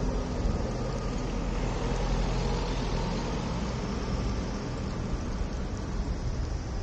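Outdoor wind buffeting the microphone, with the steady rush and rumble of road traffic passing.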